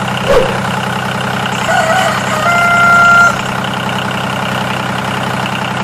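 Tractor engine running steadily. About two seconds in, a short wavering tone is followed by a held horn-like tone lasting just under a second.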